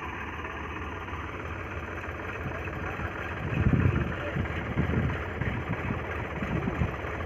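Diesel tractor engine idling steadily, with louder irregular low rumbles starting about halfway through.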